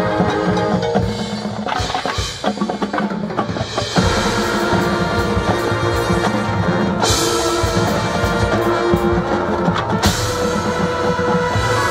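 High school marching band playing: brass and woodwinds hold chords over a drum line with bass and snare drums. The full band brightens sharply about seven seconds in and again at ten.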